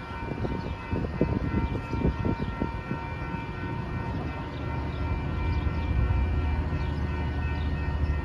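Metra bilevel commuter train rolling slowly through a grade crossing, its wheels clacking over the rail joints for the first few seconds, with several steady high-pitched tones over it. A low rumble grows louder in the second half.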